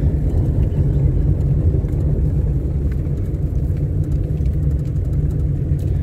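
Steady low rumble of a moving vehicle: road and engine noise with no distinct events.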